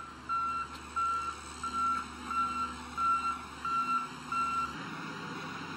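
Motor grader's reversing alarm beeping: a short high beep about every two-thirds of a second over the low rumble of its engine. Both stop a little before the end.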